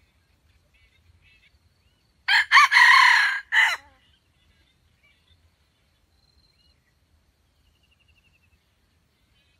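Rooster crowing once, a short crow of about a second and a half that begins about two seconds in.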